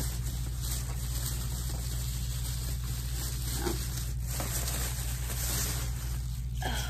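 Thin plastic shopping bag rustling as it is handled and lifted, over a steady low background hum.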